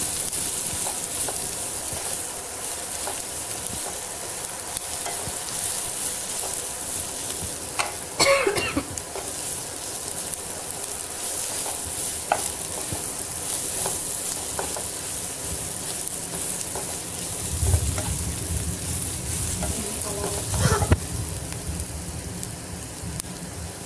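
Wooden spatula stirring and scraping grated carrot and onion frying in oil in a non-stick pan, over a steady sizzle. It gives a few louder scrapes, about 8 seconds in and again near 21 seconds.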